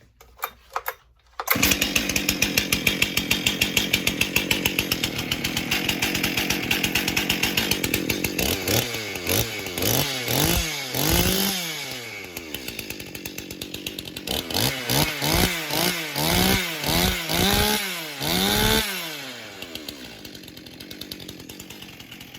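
Rebuilt and ported STIHL MS 261 two-stroke chainsaw running. A few light clicks come first, then about a second and a half in the engine comes in at high speed for several seconds. After that it is revved up and down repeatedly with a rising and falling pitch, and it settles to a lower idle near the end.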